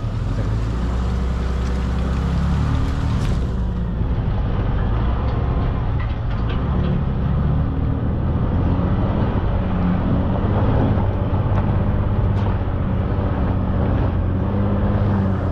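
Toyota Tundra pickup truck driving slowly along a dirt trail: a steady engine hum with tyre and trail noise, and a few scattered clicks.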